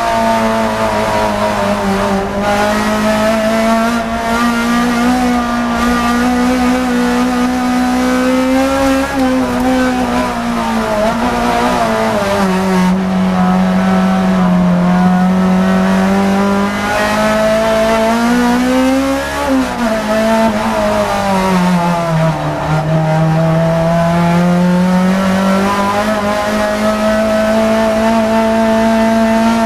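N2000-class touring car engine heard from inside the cockpit on a race lap: the engine note drops as the car brakes into slow corners, once near the middle and again about two-thirds through, and climbs again each time under acceleration.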